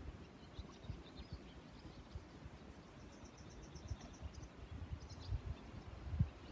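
Faint outdoor ambience: wind buffeting the microphone in low, uneven gusts, with small birds chirping high and thin, including a quick run of about ten rapid chirps around three seconds in.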